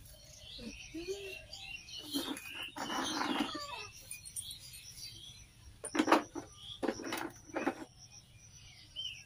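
Small birds chirping through the first half, with a few sharp knocks and rattles of a plastic jar and its lid being handled, the loudest about six seconds in.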